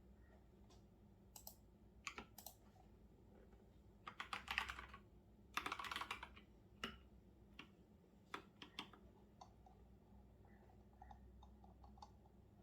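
Typing on a computer keyboard, faint: scattered single keystrokes, with two quick runs of keys about four and six seconds in.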